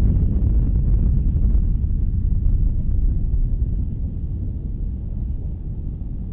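Sea surf: waves breaking as a low, steady wash of noise that slowly fades out.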